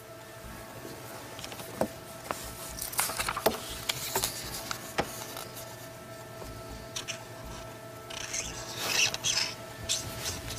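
Pen scratching on paper as numbers are written, in short rasping strokes with a few light clicks and taps, over a faint steady hum.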